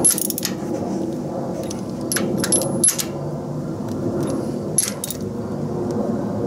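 A socket wrench clinking against the spark plugs as they are snugged down into the tractor engine: half a dozen sharp, separate metallic clinks, over a steady low hum.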